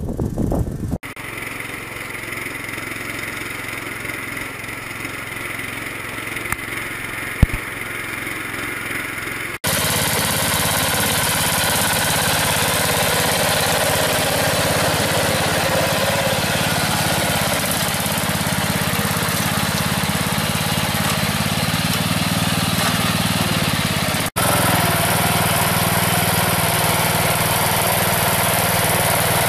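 DAKR Panter FD-5 tractor's engine running steadily while ploughing, split into separate shots. It is quieter for the first several seconds, then much louder and closer, with one sharp click a little before the louder part.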